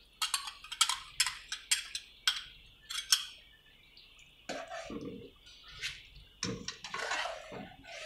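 Kitchen utensils clinking and scraping as yogurt is emptied from a bowl into a karahi: a quick run of sharp clinks in the first three seconds, then a metal spoon stirring and scraping through the curry in the pan.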